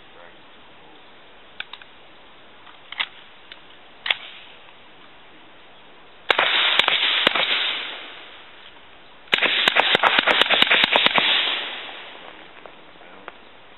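Semi-automatic Group Industries short-barreled Uzi fired in two strings: a few shots about six seconds in, then after a pause a rapid string of about fifteen shots, each group trailing off in echo. A few light clicks of gun handling come before the first shots.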